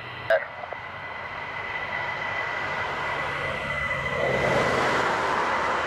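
An F-15E Strike Eagle's twin jet engines running on the runway, a steady rush with a thin high whine that grows gradually louder. A brief click near the start.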